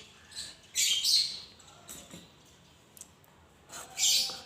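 Birds chirping in three short high-pitched bursts, near the start, about a second in, and near the end.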